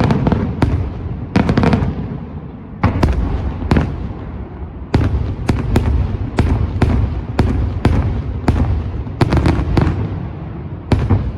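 Daylight fireworks display: a rapid, irregular run of loud bangs, roughly two a second, each followed by a low rumbling echo.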